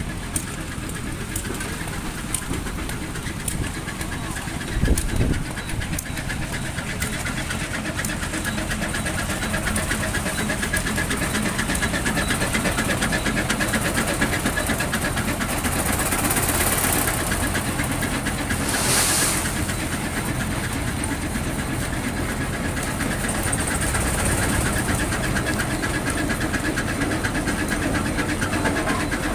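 Engine of a vintage road-construction machine running steadily with a clattering beat. A short thump comes about five seconds in and a brief hiss about nineteen seconds in.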